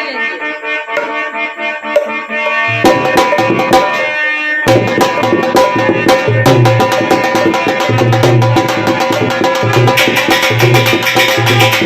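Instrumental Indian devotional folk music: a sustained melody instrument plays, hand drums join about three seconds in, and a fuller steady beat starts about five seconds in.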